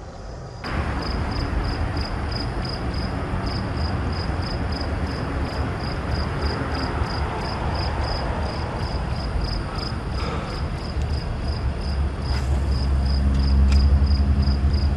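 An insect, most likely a cricket, chirping steadily about three times a second, over a rushing noise that starts abruptly about a second in. A low rumble grows louder near the end.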